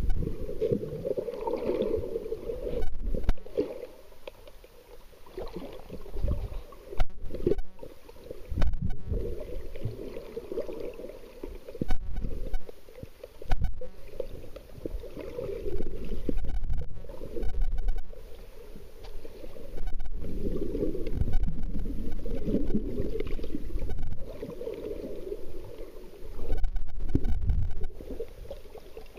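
Muffled underwater rumble and sloshing of water, heard through a camera's waterproof housing, swelling and fading every couple of seconds, with a few brief knocks.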